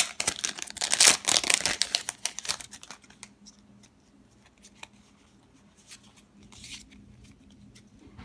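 A Pokémon Generations booster pack's wrapper crinkling and tearing open for about three seconds. After that there are only a few faint ticks.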